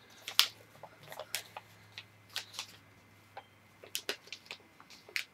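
A sheet of printer paper being folded and creased by hand: scattered, irregular crinkles and rustles, with a faint steady hum underneath.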